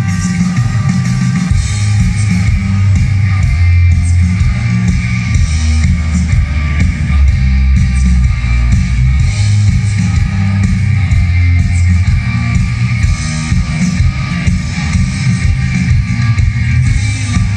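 Live rock band playing loud through a festival PA: electric guitars over bass and drum kit, heavy in the low end.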